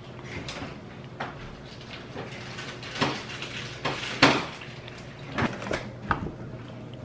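Scattered knocks and bumps of things being handled in a kitchen, the loudest a sharp knock about four seconds in, over a low steady hum.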